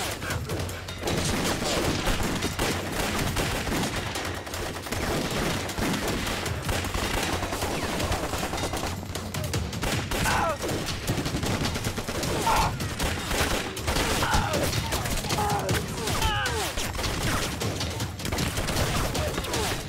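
Dense, continuous gunfire from many guns at once: a battle fusillade of rapid overlapping shots.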